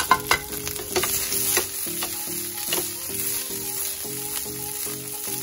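Chopped onion, garlic and capsicum sizzling as they fry on high heat in a nonstick frying pan, tossed and stirred, with sharp clicks and scrapes from time to time. A simple melody of background music plays over it.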